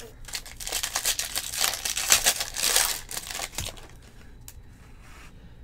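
Foil wrapper of a 2020 Bowman Jumbo baseball card pack crinkling and tearing as it is ripped open, loud for about three seconds. Then quieter handling of the cards, with a few light clicks.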